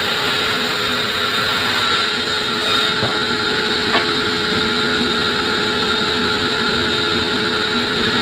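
Sawmill saw running steadily through acacia wood, with a steady whine over the noise of the cut and one sharp click about four seconds in.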